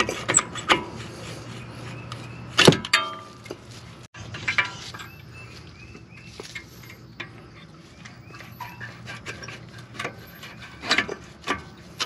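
Metal clicks and clinks of vice grips working the pad retaining pin out of a Brembo M Sport brake caliper against its spring. One sharp metal clank about three seconds in rings briefly, and another loud click comes near the end.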